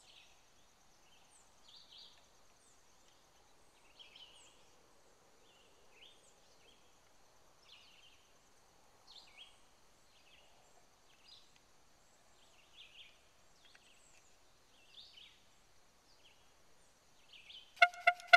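Faint birds chirping every second or two over a steady high insect trill. In the last moment a loud pitched note starts, stuttering in rapid pulses.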